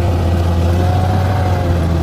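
Heavy earthmoving machine's engine running steadily, with a deep drone and a faint wavering whine above it.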